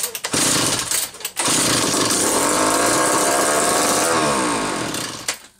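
McCulloch 1-40 two-stroke chainsaw engine running: it stumbles and cuts in and out for the first second or so, then runs steadily for about four seconds with its pitch wavering near the end, and dies about five seconds in. The owner suspects the carburetor is not tuned right.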